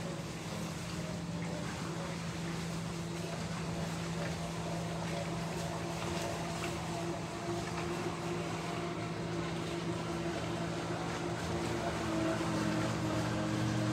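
Motorboat engine running with a low, steady hum, growing louder over the last couple of seconds.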